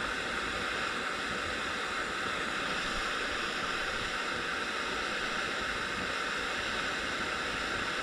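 Backpacking gas-canister stove burner running with a steady hiss under a pot, heating dinner.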